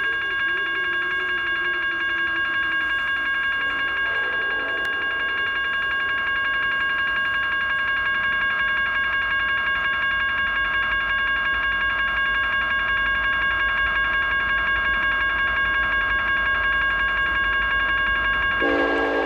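GS Type 1 electronic railroad crossing bell ringing continuously in rapid, even dings. A low rumble of the approaching freight train builds from about halfway, and near the end a locomotive horn sounds loudly.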